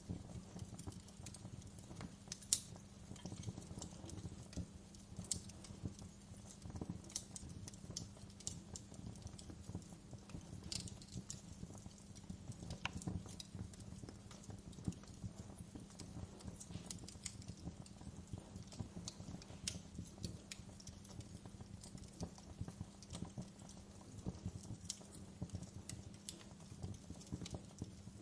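Wood fire crackling: irregular sharp pops and snaps over a steady low background, with one louder pop about two and a half seconds in.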